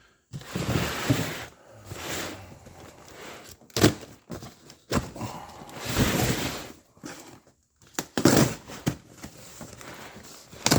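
Parts and packaging being handled: several stretches of rustling with a few sharp knocks and clicks between them.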